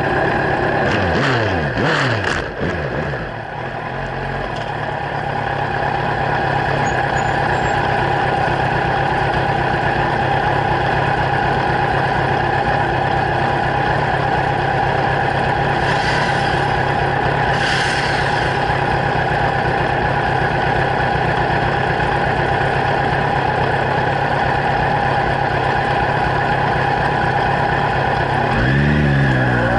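Kawasaki Z1000 inline-four through LeoVince slip-on exhausts: the revs drop back from a blip in the first few seconds, then it idles steadily. Near the end it is revved briefly again.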